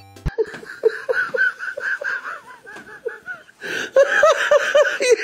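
A person laughing: a quick run of short repeated 'ha' sounds that gets louder a little over halfway through.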